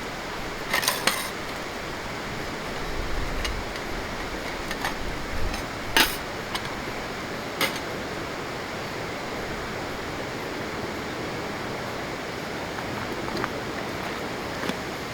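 A few sharp clinks and knocks, a cluster about a second in and single ones around six and seven and a half seconds, over a steady hiss; they fit utensils or cookware being handled.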